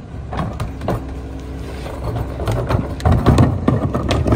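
Diesel engine of a Mack MR garbage truck idling with a steady low rumble while a plastic wheeled trash cart is tipped into the Leach rear-loader hopper by hand. Trash tumbling in and the cart knocking against the hopper edge make a series of knocks and clatter, loudest about three seconds in.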